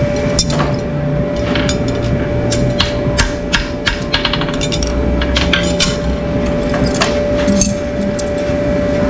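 Farrier's hammer striking in short, irregular runs of sharp taps, with a quicker flurry of light taps a little past four seconds in, over a steady tone.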